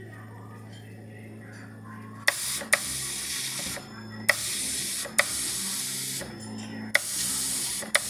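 Pneumatic dot-peen marking machine's stylus hammering into a metal plate: a hissing buzz in stretches of one to two seconds, each opening with a sharp click, starting about two seconds in after a low steady hum.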